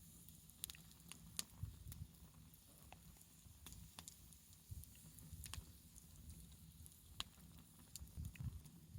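Wood fire crackling softly: irregular sharp pops and snaps, a dozen or so over a few seconds, over a faint low rumble.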